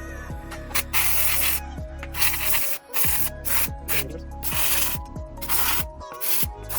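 Handheld steam cleaner hissing in short spurts, about one a second, as steam is blasted into a refrigerator's ice chute to loosen the dirt. Background music plays underneath.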